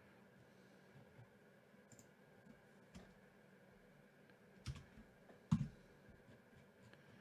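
Faint, scattered clicks of a computer mouse and keyboard, with two louder clicks close together about two-thirds of the way through.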